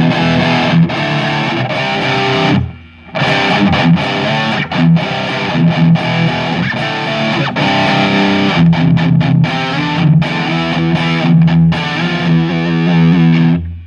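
Electric guitar played through a Maxon OD-9 overdrive pedal into a Marshall JCM 2000 amp and 4x12 cab, playing distorted rock riffs with a short break about three seconds in.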